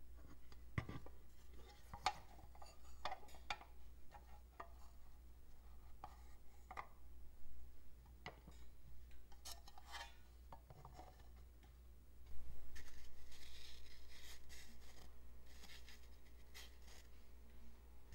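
Clear plastic terrarium case being handled: scattered light clicks and taps of the plastic parts against each other and a wooden tray. About twelve seconds in a louder scratchy hiss starts suddenly and slowly fades.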